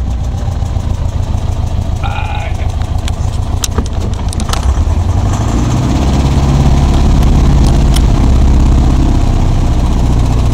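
Light aircraft's piston engine, the one that burst a cylinder in flight, running; it picks up and gets louder and steadier about five to six seconds in, with a few sharp clicks in the middle.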